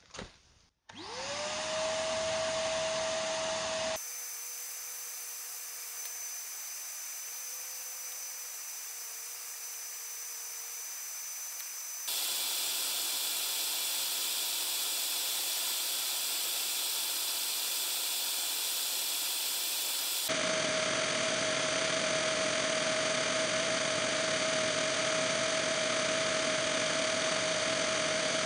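Wet-and-dry vacuum cleaner switched on about a second in, its motor spinning up to a steady whine and running on as a blower to winnow chaff out of threshed buckwheat. The sound changes abruptly a few times, as at cuts.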